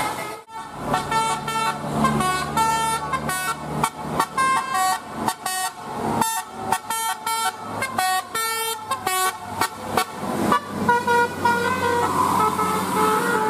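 Multi-tone 'telolet' bus air horn playing a quick tune of short notes, then a few longer held notes in the last few seconds.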